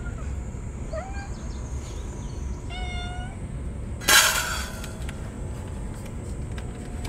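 Cats meowing: a short rising call about a second in and another meow near three seconds. A little after four seconds comes a loud, brief rustling scrape, a tabby cat rubbing its body against the microphone.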